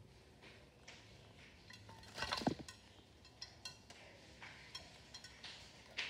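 Quaker parrot bathing in a shallow glass bowl of water: scattered small splashes and sharp little clinks of droplets, with a louder splash about two seconds in.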